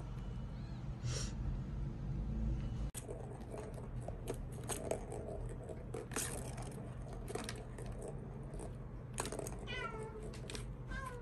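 Plastic balls clicking and rattling as kittens bat them around a three-tier ball track cat toy, with a couple of short, falling meows from a kitten near the end.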